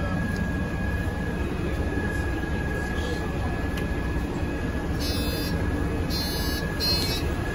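City bus running, heard from inside the passenger cabin: a steady low rumble with a thin, steady whine above it. In the last few seconds a high buzzing comes in short spells.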